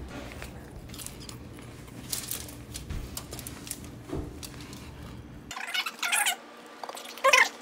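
Crunching bites and chewing of Korean fried chicken, a run of small crisp clicks. After about five and a half seconds come a few short, high-pitched squeaky sounds, louder than the crunching.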